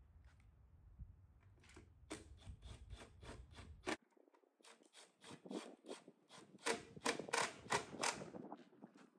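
Cordless impact driver driving screws: runs of sharp, rapid clicks in short bursts, loudest a little past the middle. A low hum under the first half cuts off suddenly about four seconds in.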